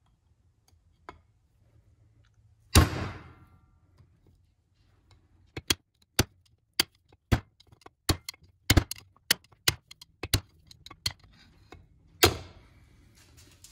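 Steel screwdriver worked down against the pump bushing in a 4L80E transmission pump cover to get the bushing out: two loud metal clanks that ring on, about three seconds in and near the end, and between them a run of sharp metallic clicks, roughly two a second.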